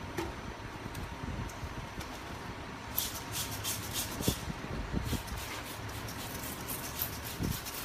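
Hand trigger spray bottle squirting water onto a freshly painted bumper panel to wet it for wet sanding: a series of short hissing squirts in quick clusters, starting about three seconds in.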